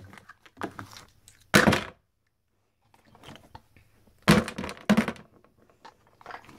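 A series of thunks and knocks: small plastic toys being handled and knocked against a hard floor, the loudest about a second and a half in and again at about four and a half seconds.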